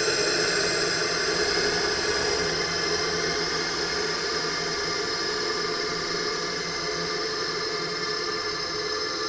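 Horror sound effect: a steady hissing, rumbling drone with a few faint held tones in it, easing off slightly as it goes.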